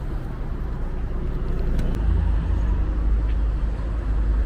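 A motor vehicle's engine running with a steady low rumble that grows louder about two seconds in.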